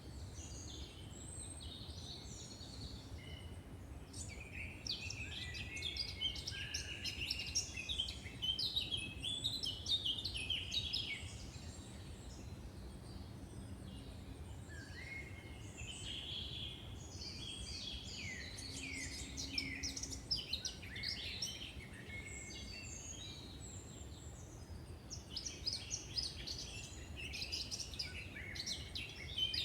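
Songbirds singing in woodland: phrases of quick, high chirping notes come in bursts every few seconds, over a steady low background noise.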